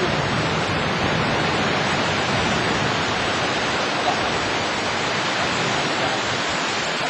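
Steady rushing noise of waves breaking on the beach, mixed with wind on the microphone.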